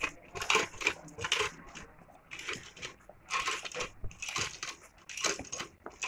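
Footsteps of a bull and its handler walking on dry dirt: irregular crunching, scuffing steps, several a second, with gaps.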